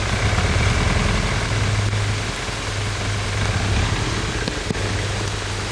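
Toyota 3B four-cylinder diesel engine in a Land Cruiser 60 idling steadily with a knock. The knock was traced to a carbon-coked exhaust manifold channel, in an engine that had been burning a lot of oil.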